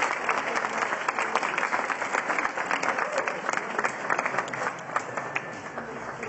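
Applause from a group of people: many hands clapping densely, thinning slightly near the end.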